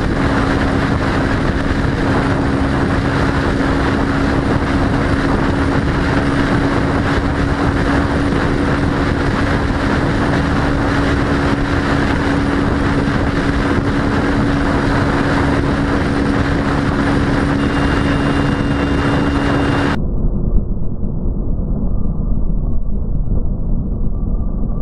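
Motorcycle cruising at speed: a steady engine drone under a loud, even rush of wind and road noise. About twenty seconds in, the sound suddenly becomes muffled as its high end drops away, and the low rumble turns more uneven.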